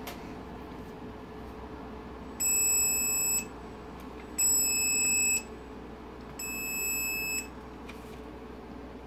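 Audi TT MK1 instrument cluster's warning buzzer sounding three beeps as the cluster is powered up: each beep is a steady tone about a second long, starting two seconds apart.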